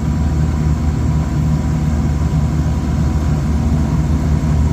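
Trane rooftop packaged air-conditioning unit running with a steady low hum and a faint thin tone above it.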